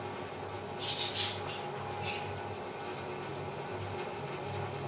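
Wet, floury fingers brushing and pressing over rolled paratha dough, a few short soft swishes about a second in, over a steady low background hum.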